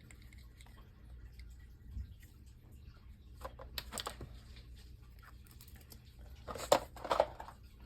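Light taps, clicks and short scrapes of containers and utensils being handled, with a louder clatter of a few sharp clicks near the end.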